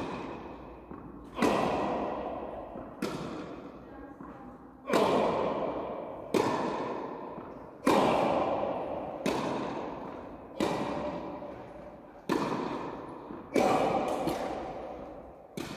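Tennis balls being struck with a racket again and again, a sharp pop about every one and a half seconds, each ringing out in the long echo of an indoor tennis hall.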